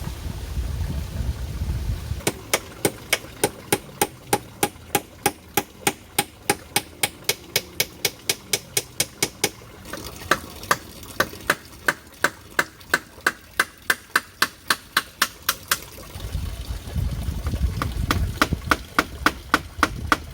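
A tool striking repeatedly with sharp, even blows, about three a second, in a long run that pauses about sixteen seconds in and starts again two seconds later.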